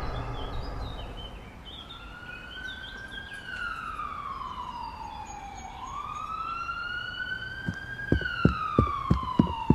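Police siren wailing, starting about two seconds in, each cycle sliding slowly down in pitch and then quickly back up. Near the end a run of regular heavy thuds joins it, about two or three a second.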